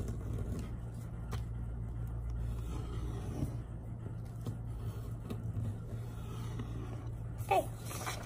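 A steady low hum, with faint scrapes of a fingernail creasing a fold in white paper. The paper rustles as it is lifted near the end.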